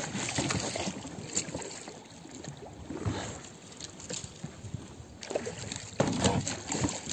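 Small rowing boat under way on a river: paddle or oar strokes and water sloshing against the hull, with light knocks. Louder splashing begins about six seconds in.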